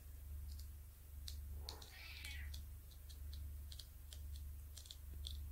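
Faint, scattered small clicks and taps of a diamond painting pen's multi-placer tip pressing drills onto the sticky canvas, irregularly spaced, over a low steady hum.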